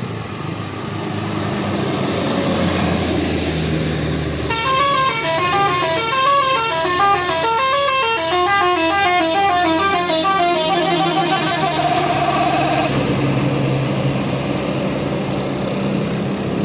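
A bus's telolet horn, a multi-tone musical air horn, playing a tune of stepped rising and falling notes for about eight seconds, starting about four seconds in and ending in a quick trill of repeated notes, over the steady sound of the bus engine running.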